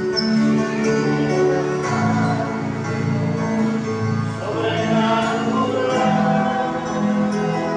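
Live worship music on an electronic keyboard: slow, held chords that change every second or two.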